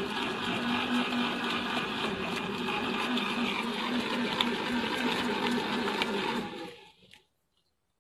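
Steady whirring of a small electric motor spinning a watermelon on a homemade lathe-like spindle rig, with a constant low hum; it cuts off abruptly shortly before the end.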